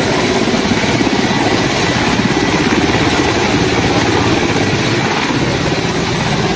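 Mi-17 military transport helicopter hovering low and settling, its main rotor a steady rapid chop over a wash of turbine and rotor noise.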